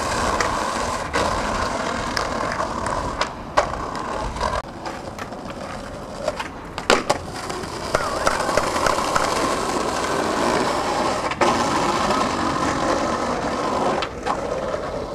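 Skateboard wheels rolling over rough concrete, a steady grinding rumble, with a few sharp knocks of the board.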